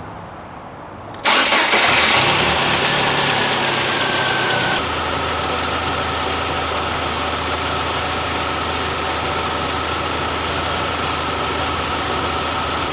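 Car engine starting about a second in, running at a fast idle, then settling to a steady idle about five seconds in. With a new belt pulley and the drive belt refitted, the engine runs without its growl.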